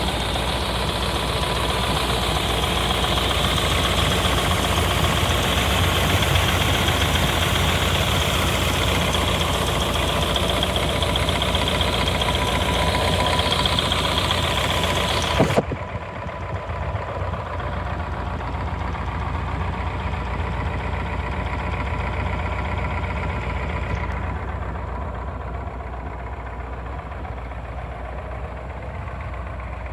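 Plymouth Barracuda's 426 Hemi V8 with solid lifters, idling steadily. About fifteen seconds in there is a sharp click and the sound turns abruptly duller, the engine still running underneath.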